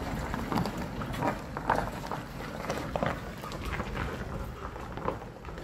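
Pickup truck pulling a loaded plant trailer across a rough farmyard: a low engine running under irregular clicks and knocks.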